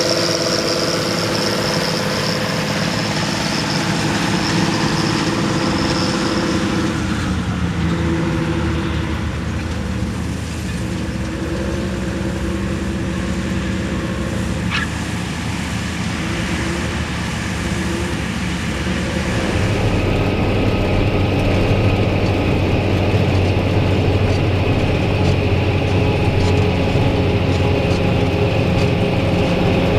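Diesel engines of harvest machinery running steadily in the wheat field. About two-thirds of the way through, the sound changes to a heavier, lower hum.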